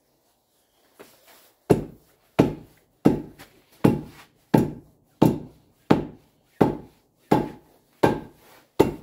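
Hammer blows tapping a steel block anvil down onto a log stump through a glove laid on its face to soften the noise. About eleven evenly spaced blows, roughly three every two seconds, begin about two seconds in. They seat the anvil into the fresh sealant on the log.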